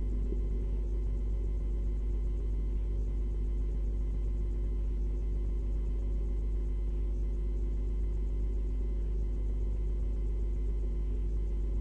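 Steady low electrical hum made of several constant tones, unchanging throughout, with no distinct event.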